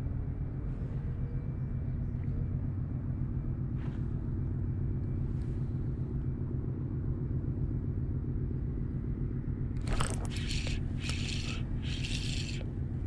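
A steady low rumble throughout. About ten seconds in, a sudden sharp sound is followed by evenly spaced scratchy strokes, about one and a half a second: a Shimano Stradic 2500 spinning reel being cranked quickly to wind in a hooked fish.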